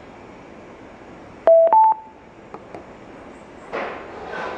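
Philips BT64W Bluetooth speaker giving its prompt tone, two short beeps with the second higher, as a short press of its button switches it into SD card mode. A short hiss follows near the end.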